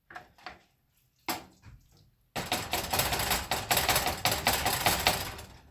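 Spatula working a ground-meat mixture in a pan: a few light knocks, a sharper knock about a second in, then about three seconds of continuous rapid scraping and clattering as the mixture is spread out.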